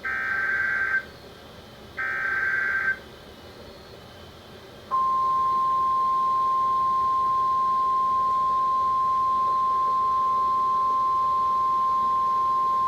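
NOAA Weather Radio emergency alert: two of the SAME digital header bursts, each about a second long, then a steady single-pitched warning alarm tone near 1 kHz that starts about five seconds in and holds. The alarm tone announces the flash flood warning that follows.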